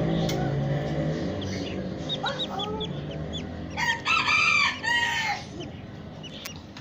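A rooster crowing once, about four seconds in, in two parts. Short high chirps of small birds come before it.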